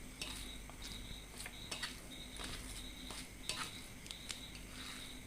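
Faint, scattered small clicks and light clinks of a meal being eaten from a plate.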